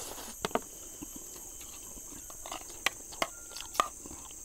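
Spoons tapping and scraping on plates in a few short sharp clicks while eating, over a steady high-pitched insect chorus.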